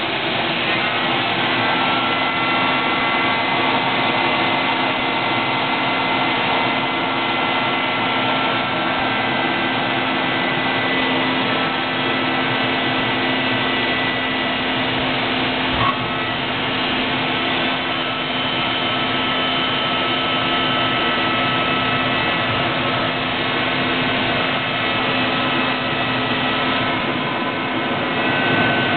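BAE Hawk T1's Rolls-Royce Turbomeca Adour turbofan heard from inside the cockpit at high power for take-off: a loud, steady rushing noise with several high whining tones over it. A single sharp click sounds about halfway through.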